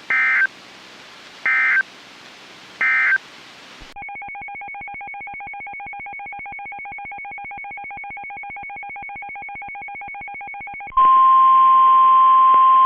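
Emergency Alert System tones on NOAA Weather Radio. Three short screeching digital data bursts end the previous warning. After them comes about seven seconds of a steady, rapidly pulsing electronic signal. Then, about 11 seconds in, a loud steady single-pitch alarm tone starts: the 1050 Hz Weather Radio warning alarm that announces the next warning.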